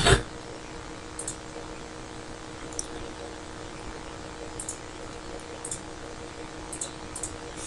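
A thump at the start, then a handful of faint, scattered computer mouse clicks over a steady hum.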